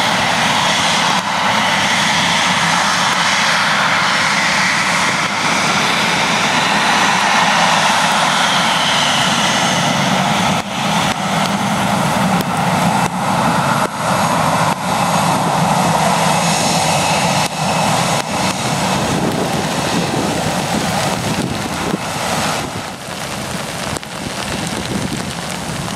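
Boeing 737-800's twin CFM56 turbofans at take-off thrust as the airliner accelerates down the runway and past, a loud, steady jet noise that starts to fade and waver over the last few seconds as it moves away.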